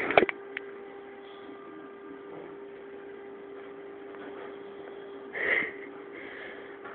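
A sleeping person snoring: one short, noisy breath about five and a half seconds in, then a fainter one, over a steady electrical hum.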